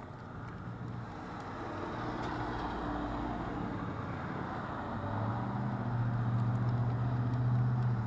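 A motor vehicle's engine hum swelling and growing louder through the second half, with a steady low drone that peaks near the end. A few faint clicks from a screwdriver working a brass mortise lock cylinder.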